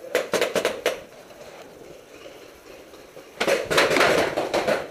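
Paintball markers firing, sharp pops in quick succession: a short string of about six shots in the first second, then a longer, louder rapid burst near the end.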